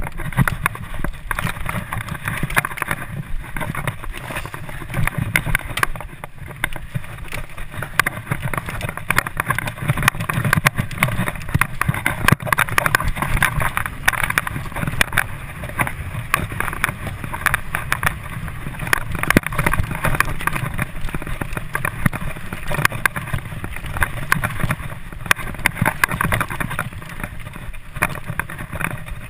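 Mountain bike riding fast over a dirt trail: a continuous rumble of tyres and rushing air, with frequent sharp rattles and knocks from the bike over the bumps.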